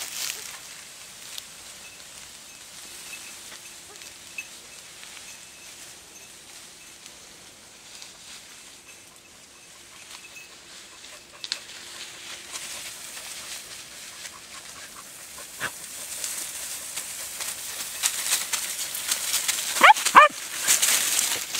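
Dry grass and reeds rustling as someone pushes through them. Near the end, an Andalusian podenco gives two short, sharp yelps.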